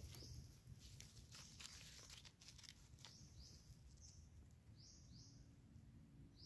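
Near silence: faint rustles and ticks in the leaf litter as a mushroom is plucked from the forest floor, then a faint high chirp repeated several times in the second half.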